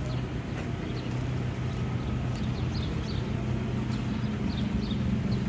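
A steady low engine hum from traffic at an intersection, with short high bird chirps scattered over it.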